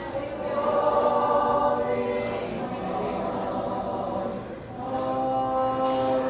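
Group of carolers singing in harmony, holding long notes; the singing swells about half a second in, dips briefly, and swells again near the end.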